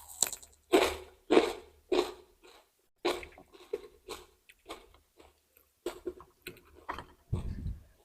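Close-miked crunching and chewing of raw vegetables: crisp crunches about every half second, with a brief pause about a third of the way in. Near the end comes a dull low thump.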